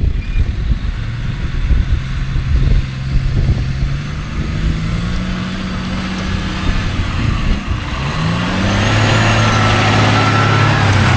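Truck engine pulling hard as the empty truck accelerates at speed to climb a muddy hill without getting stuck. Its pitch climbs in steps through the gears, and the engine gets louder from about eight seconds in.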